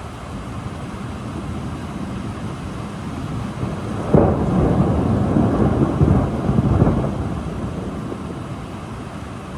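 Thunder over steady rain: a low rumble builds, breaks into a sudden loud clap about four seconds in, rolls for about three seconds and then dies away.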